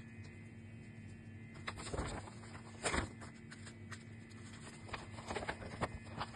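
Sheets of paper rustling and crackling as they are handled: a printed letter and a folded leaflet being shifted, lifted and opened, in irregular bursts with the sharpest crackle about three seconds in and a flurry of smaller ones near the end. A faint steady hum runs underneath.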